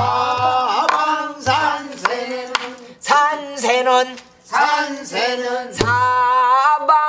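Korean danga sung in pansori vocal style, a line held and bent in pitch over a sori-buk barrel drum that is struck three times: at the start, about a second and a half in, and just before six seconds in.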